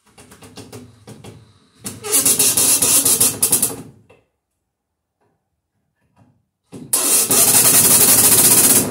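Cordless drill/driver run overhead against a wooden ceiling, driving a screw into the wood. It runs in two bursts of about two seconds each, the first one after a short stretch of lighter, slower ticking.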